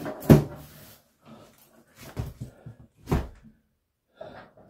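Heavy 110 lb EG4 LifePower4 rack battery knocking against the metal server rack as it is shoved into its slot. One sharp knock comes just after the start, two more around two and three seconds in, and a softer one near the end.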